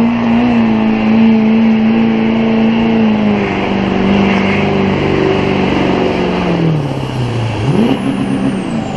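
Diesel pickup truck engine at full throttle, pulling a weight-transfer sled. The engine note holds steady, then drops in pitch about seven seconds in before a quick rev back up near the end.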